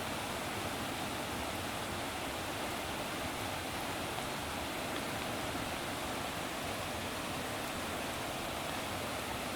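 Steady, unbroken rush of water, an even hiss-like roar with no distinct splashes or other events.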